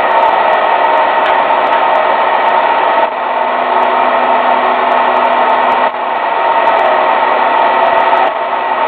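Electric motor of a battery-powered generator prototype running steadily, driving a belt and pulleys, with a hum that holds several steady tones. Its level dips briefly a few times, about three and six seconds in, while the supply is switched from one battery bank to the other.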